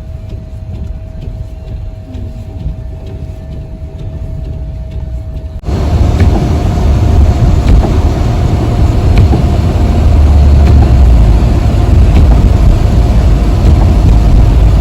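Steady low rumble of a car on the move, with a faint steady hum running through it. About six seconds in it turns suddenly louder and rougher and stays that way.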